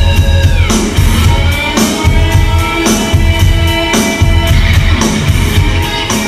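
Music with a steady beat: deep pulses and sharp strikes about once a second under held tones, with a high tone sliding down in pitch about half a second in.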